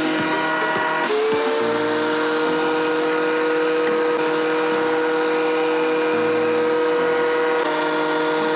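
DeWalt benchtop thickness planer running with a steady multi-pitched whine. About a second in, the gritty cutting hiss stops and the whine rises slightly, and its pitch shifts again near the end.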